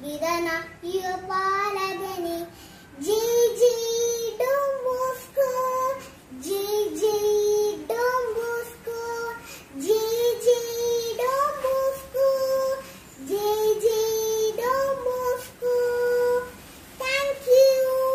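A young girl singing solo with no accompaniment, holding each note in phrases of a second or two with short breaths between.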